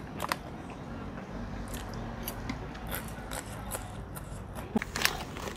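Metal forks clicking and scraping against a ceramic bowl of stir-fried noodles during eating: scattered light clicks, with a couple of louder ones near the end.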